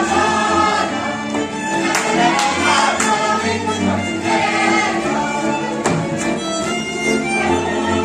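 Hungarian folk dance music with fiddle and a group singing along, with a few sharp knocks from dancers' boots on the wooden stage.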